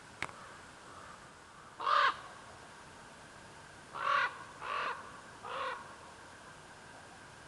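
Harsh cawing calls from a crow-family bird: one loud caw about two seconds in, then three quicker caws a little later. A short faint tick sounds just at the start.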